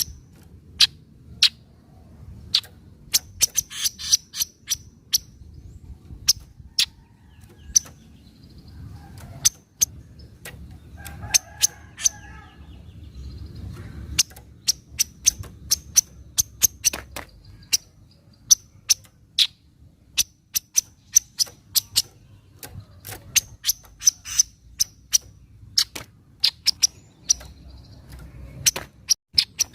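Kaso-kaso (striated grassbird) giving its sharp 'nyecret' calls: short, clicking chips repeated irregularly, often a couple a second and sometimes in quick runs, over a low steady background hum.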